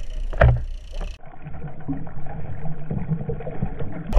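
A splash about half a second in, then dull, muffled water noise heard from below the surface, with all the bright upper sound cut away.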